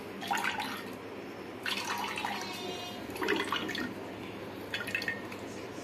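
Coconut milk dripping and trickling into a steel pot as ground coconut paste is squeezed by hand in a metal strainer, in four or five short wet spurts.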